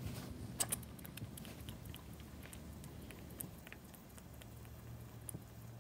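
Small toy oscillating steam engine running just after being started: a faint low hum with light, irregular ticking and spitting.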